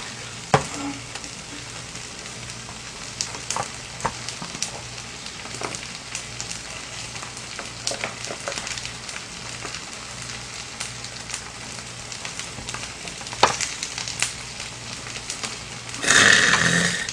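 Jjuksam bulgogi (webfoot octopus and pork belly) with rice sizzling as it is stir-fried in a pot, with a spoon clicking and scraping against the pot now and then. A louder rush of sizzling comes near the end.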